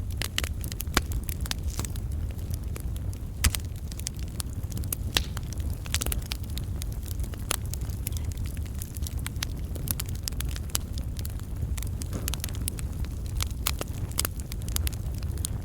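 Log campfire burning: the wood crackles densely and irregularly, with a few louder sharp pops, over a steady low rumble of the flames.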